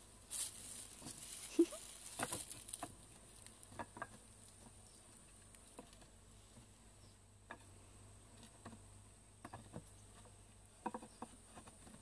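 Wooden top bars of a top-bar beehive knocking and scraping together as they are pushed back into place to close the hive: a scattered series of light knocks at irregular intervals.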